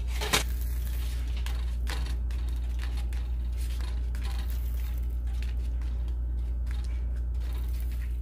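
A spatula knocks once against the frying pan as the quesadilla is turned to cook its other side, followed by a few faint taps, over a steady low hum.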